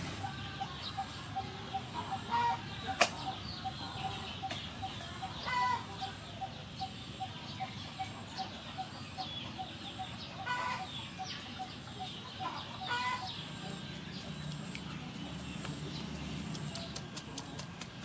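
A bird repeating one short note about three times a second, with chickens clucking now and then over it. A single sharp click comes about three seconds in, and a run of quick clicks near the end.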